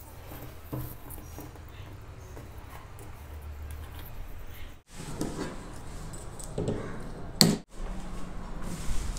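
Quiet handling noises of electrical wiring work: PVC-insulated wires and small fittings rustling and clicking as they are laid and fitted, with one sharp click about seven seconds in.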